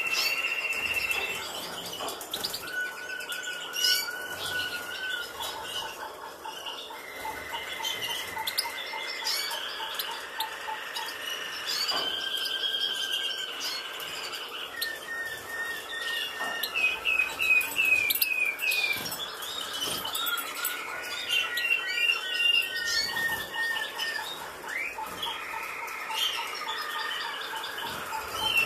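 Caged songbirds singing: rapid trills of short repeated notes, each run held at one pitch before switching to another, with scattered chirps.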